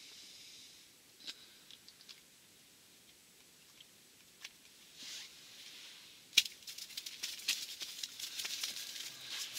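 Rustling of a winter jacket sleeve and small handling clicks as the angler moves close to the microphone: a few faint ticks at first, then a sharp click about two-thirds of the way in, followed by a dense crackly rustle.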